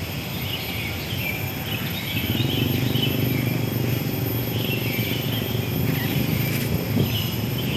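Outdoor ambience of birds and insects chirping, with a low steady hum joining about two seconds in.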